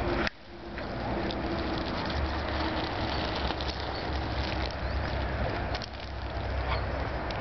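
Steady outdoor background noise, a low rumble with hiss, with a few faint clicks; the sound drops out sharply just after the start and builds back within about a second.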